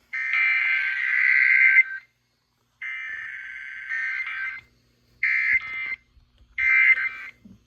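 Emergency Alert System (SAME) digital data bursts over NOAA Weather Radio. There are four bursts of rapid two-tone data, the first two nearly two seconds long and the last two shorter, with brief gaps between them.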